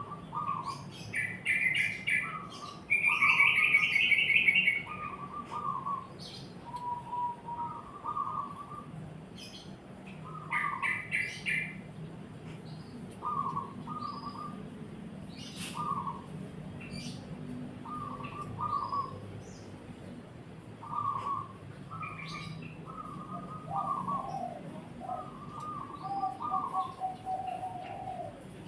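A zebra dove (perkutut) cooing in short repeated phrases, mixed with bursts of chattering song from a yellow-vented bulbul (trucukan), the loudest burst about three to four seconds in. A faint steady low hum underneath.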